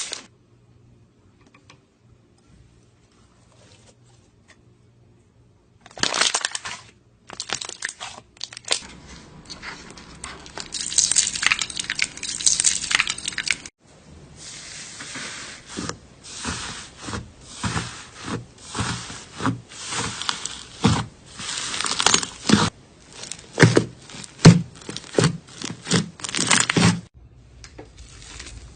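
Slime being squeezed and pressed by hand, giving crackling, crinkling pops. It starts after a few near-silent seconds, comes in a thick patch and then in a string of separate squishes.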